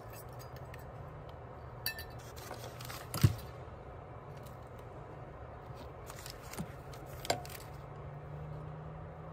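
A bowl knocking and clinking against a stainless-steel pot as chopped coriander root and sliced galangal are tipped into the water, with the sharpest clink about three seconds in and another about seven seconds in, over a low steady hum.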